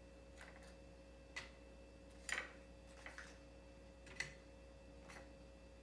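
Metal kitchen tongs clicking lightly, with a faint metallic ring, as they pick up egg rolls from a wire cooling rack: about six short clicks roughly a second apart, over a faint steady hum.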